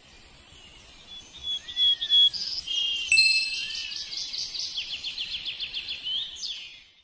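Birdsong sound effect: rapid high chirps and trills, with a bright ringing ding about three seconds in.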